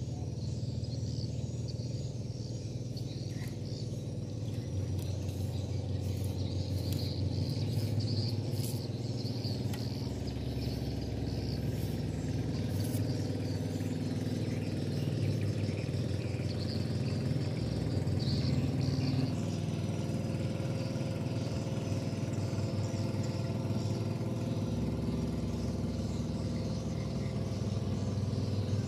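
Birds chirping over a steady low hum.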